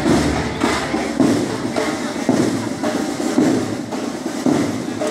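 Parade marching-band drums beating a steady march rhythm, about two beats a second.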